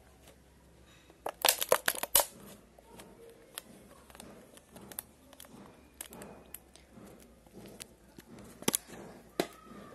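Close-up crackling and clicking from the earphone cable and its inline microphone being handled at the lips: a dense run of sharp crackles about a second in, scattered small clicks after, and two more loud clicks near the end.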